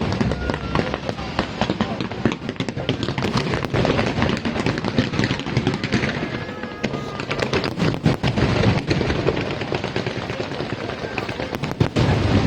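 Aerial fireworks display: a dense, continuous run of bangs and crackles from bursting shells, with crowd voices underneath.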